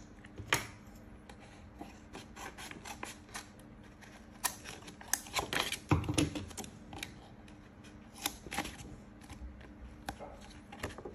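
Stiff paper rustling and crackling while being wrapped and pressed around a thin plastic cup, with scattered clicks and taps from the cup being handled. The handling is busiest and loudest about five to six seconds in.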